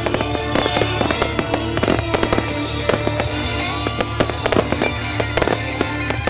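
Fireworks crackling and banging many times a second over a loud musical soundtrack playing through a public-address system.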